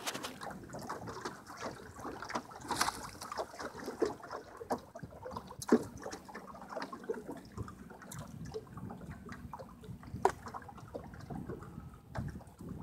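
Gill net being hauled by hand over the side of a small boat: water splashing and dripping off the wet mesh, with many irregular taps and knocks of the net and catch against the boat. Two sharper knocks stand out, one near the middle and one later on.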